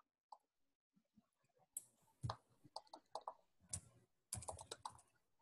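Faint computer keyboard typing: irregular key clicks, some in quick runs, starting a little under two seconds in.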